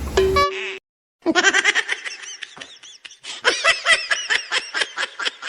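High-pitched laughing: a long run of quick 'ha' bursts, about four or five a second, after a short beep and a brief silent gap at the start.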